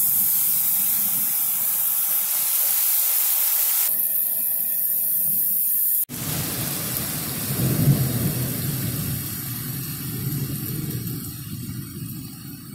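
Steaks sizzling on a hot gas grill, a steady high hiss. About six seconds in it cuts off suddenly to a low rumble under a steady hiss.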